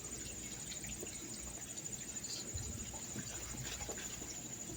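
Crickets trilling steadily in a high, finely pulsing chorus, over a low outdoor rumble.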